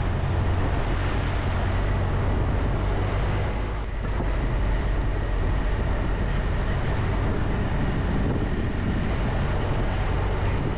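Triumph Tiger 1200 motorcycle's three-cylinder engine running steadily while riding through town, with wind noise on the microphone.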